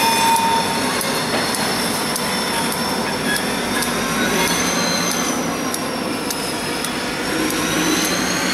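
Freight train rolling slowly past on steel rails, its wheels giving a thin, high squeal that wavers up and down, with scattered sharp clicks over a steady rumble.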